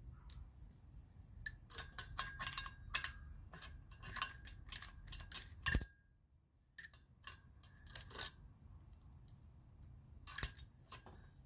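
Small steel valve-train parts (spring washers, caps and keepers) clicking and clinking as they are picked out of a Toyota 2AR-FE cylinder head with a metal tool. The clicks come irregularly, some with a short high ring.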